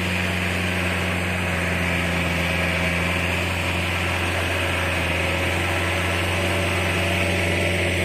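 An engine running steadily at an even speed, a low hum that neither rises nor falls.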